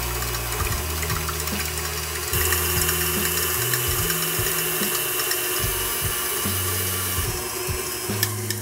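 KitchenAid Artisan tilt-head stand mixer running with the wire whip, whipping whole eggs and sugar to a foam: a steady motor whir that gets louder about two seconds in. Background music with a slow bass line plays under it.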